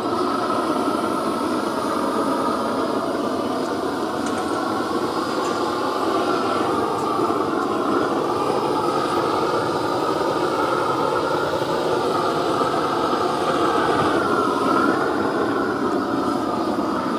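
Long-wand propane torch burning steadily with an even rushing roar while it scorches a carved wooden pumpkin to seal the wood and burn off loose fibres.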